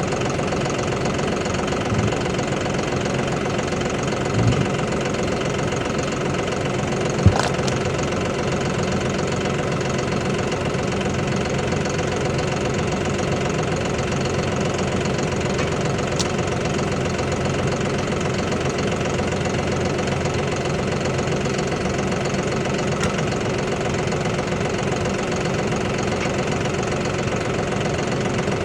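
An engine idling steadily, with a few short sharp knocks over it, the loudest about seven seconds in.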